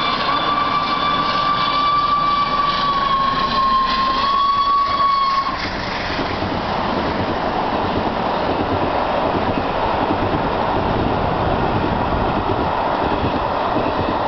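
Whistle of the LNER Peppercorn A1 Pacific steam locomotive 60163 Tornado, blowing one long steady note that sags slightly in pitch and stops suddenly about five seconds in. After it comes the steady rushing noise of the locomotive and its carriages running across the viaduct.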